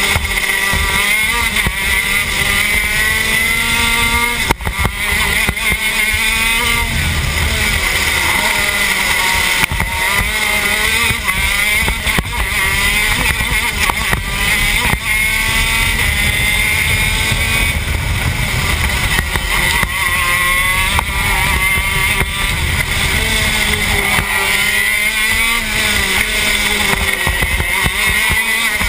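TM K9c 125cc two-stroke shifter kart engine at racing speed, heard close up from on board. Its note repeatedly climbs and then drops as it works up and down through the gears.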